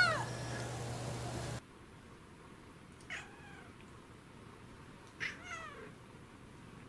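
Cat meows: the end of a loud, high kitten meow sliding down in pitch right at the start, then two short, quieter meows from an orange tabby about two seconds apart, each falling in pitch.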